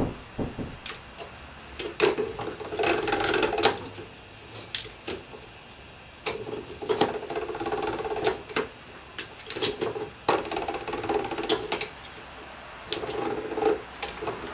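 Hand-cranked slip roll machine being turned, its gears and rolls whirring in several short runs as a sheet-metal pipe section is rolled into a curve, with clicks and knocks in between.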